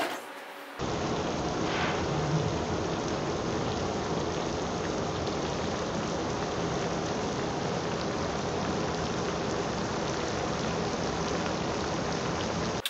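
A freshly baked cheddar-and-Cheetos cheese crisp sizzling on its hot baking sheet: a steady crackling hiss that starts about a second in and cuts off suddenly at the end.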